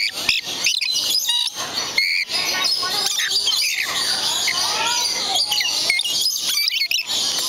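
Many birds calling close by: a dense run of shrill chirps and squawks, with a few longer calls sliding up and down in pitch.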